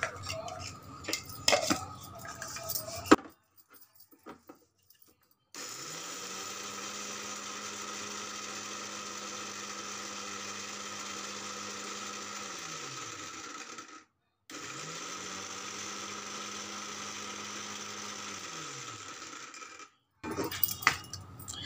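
Electric mixer grinder grinding walnuts, run twice: about eight seconds, then about five seconds, its motor hum rising as it spins up and falling as it stops each time. Before the runs, steel dishes and a spoon clink as the nuts are tipped into the jar.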